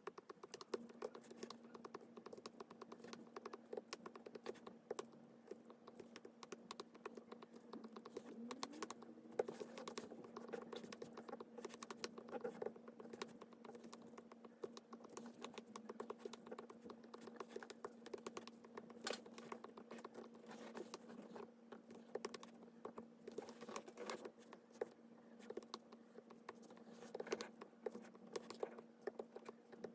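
Clear disc-tip stylus tapping and scratching on a tablet's glass screen while drawing: quick irregular light clicks throughout, over a faint steady hum that begins about a second in.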